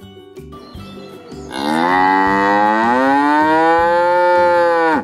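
A cow mooing: one long call that starts about a second and a half in, rises in pitch, holds, and cuts off suddenly.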